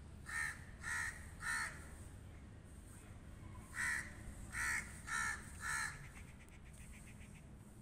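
A crow cawing: three harsh caws, then a pause of about two seconds, then four more caws at an even pace.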